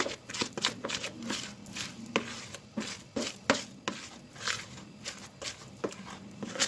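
Thick cake batter being poured from a plastic mixing bowl into a round aluminium cake tin, with irregular light clicks and taps of the bowl against the tin, a few each second.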